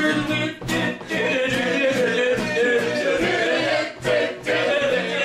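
Voices singing without instruments, in a cappella style, holding long sung notes.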